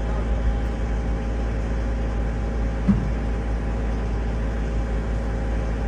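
XCMG 60G mini excavator's diesel engine running steadily, with one brief low knock about three seconds in.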